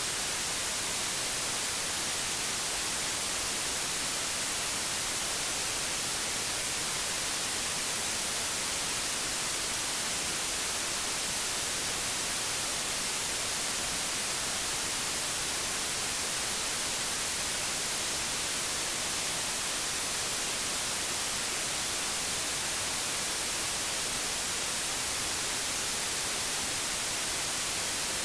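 Old television static: a steady, even hiss, brightest in the treble, with no change in level.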